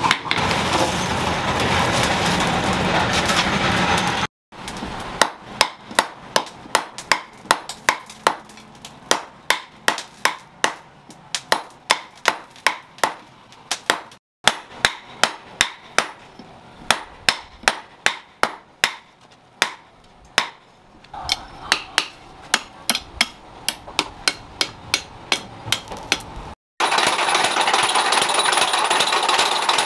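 A hand hammer striking red-hot steel on a post anvil, with sharp ringing blows at about two to three a second, in long runs broken by cuts. Steady machine noise fills the first few seconds and the last few.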